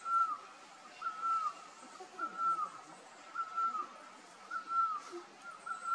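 A bird calling over and over: one short whistled note that drops in pitch at its end, repeated evenly a little more than once a second.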